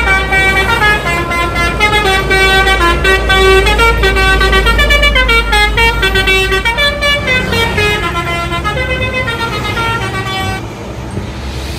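Basuri telolet bus horn, a multi-tone horn, playing a stepped melody of held notes over a steady low engine rumble. The tune stops about ten and a half seconds in.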